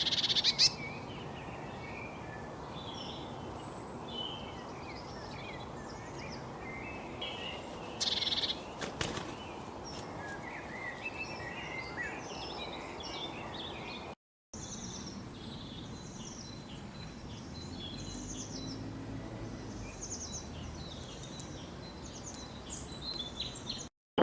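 Several birds chirping and singing in short overlapping calls over a steady background noise; the sound drops out for a moment about halfway through.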